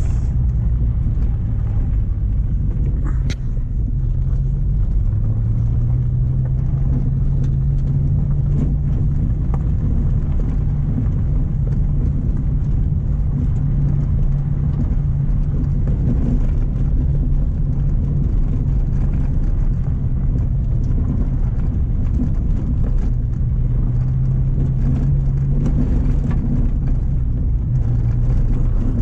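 Mk1 Renault Clio's engine running as the car is driven slowly, a steady low hum; the engine note rises about five seconds in and drops again near the end.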